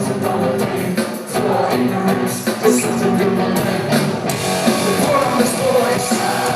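Live rock band playing loud, with electric guitar to the fore; the sharp percussive hits ease off about four seconds in.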